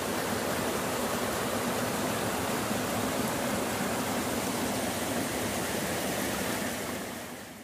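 Spring water rushing over rocks in a small mountain cascade: a steady splashing rush that fades out at the very end.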